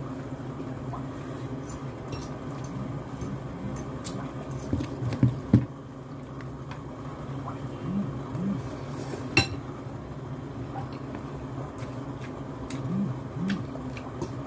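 Metal fork and serving spoon clinking and scraping against a glass serving bowl and plate while noodles are eaten. The clinks and knocks are scattered, the sharpest about nine seconds in, over a steady low hum.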